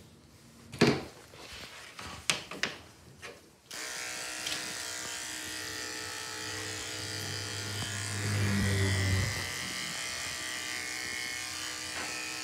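A few handling knocks, then about four seconds in an electric pet hair clipper switches on and runs with a steady buzzing hum. The hum grows louder and deeper for about a second, around eight seconds in.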